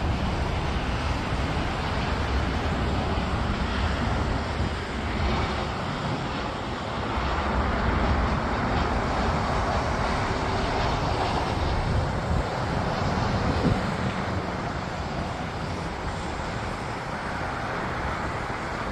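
Jet engines of a Boeing 737-900 airliner on final approach, a steady rushing roar that grows louder about halfway through and eases off a little as the plane nears touchdown.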